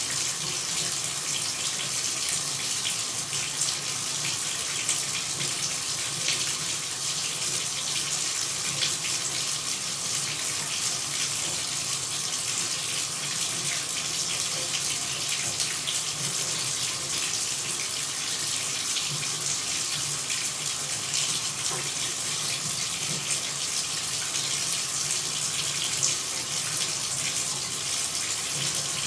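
Steady running water: an even, unbroken splashing hiss that carries most of its energy in the upper range.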